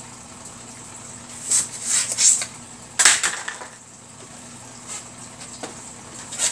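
Hand balloon pump pushing air into a long blue twisting balloon in three short hissing puffs, then a sharp rustle of latex about three seconds in and faint rubbing and clicks as the balloon is handled.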